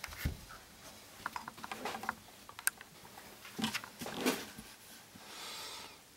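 Handling noise: scattered light clicks and rustles as multimeter test probes and their leads are picked up and the probe tips are set against the legs of a small film capacitor.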